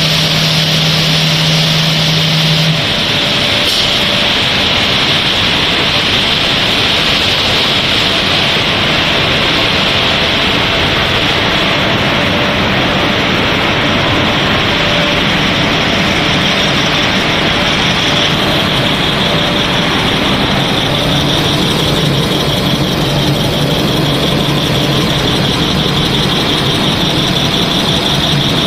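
Twin-screw snack pellet extrusion line running: loud, steady mechanical noise with a high whine. A low hum cuts out about three seconds in.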